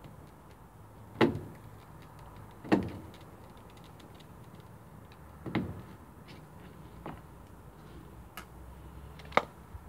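Sharp clicks and knocks of a Yankee screwdriver used by hand, working screws out of a plastic greenhouse door stop and frame. There are about five of them, spread irregularly over ten seconds, against a low steady background.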